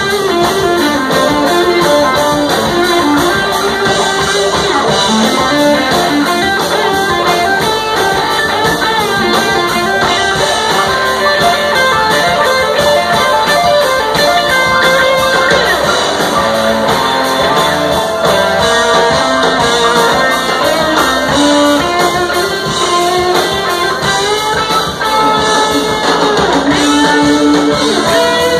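A live band playing: electric guitar with keyboards and drums, loud and continuous.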